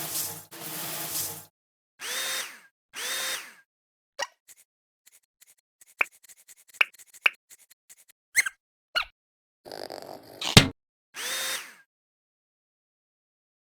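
Cartoon sound effects: several short whooshing bursts, a run of small clicks and chirps in the middle, and one sharp, loud hit about ten and a half seconds in.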